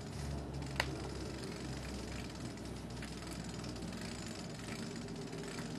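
Outboard motor hoist being worked to lower the motor onto a dinghy: a sharp click about a second in and a few faint mechanical clicks over a steady low rumble.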